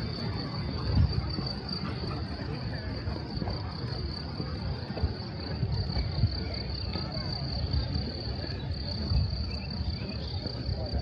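Steady, continuous high-pitched chirring of insects, crickets or grasshoppers, over a low rumble.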